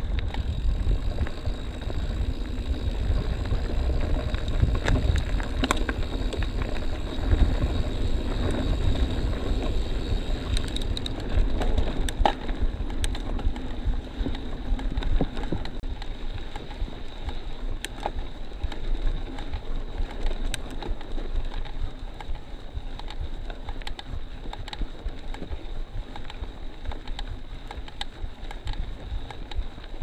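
Wind buffeting the microphone while a mountain bike is ridden along a dirt trail, with scattered clicks and rattles from the bike. The wind rumble is heavier through the first half and eases somewhat after the middle.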